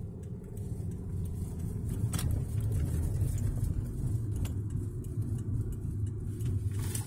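Car engine and road noise heard from inside the cabin as the car pulls away and drives on, a low rumble that grows louder over the first couple of seconds and then holds steady, with a light click about two seconds in.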